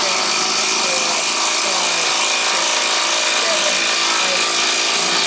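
Milwaukee M12 sub-compact impact driver hammering continuously as it drives a screw into wood through a nut driver, under full load.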